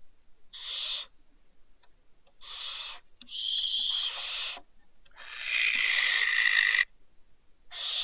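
Barn owl giving about five harsh, hissing screech calls, each half a second to a second and a half long, the longest one in the middle.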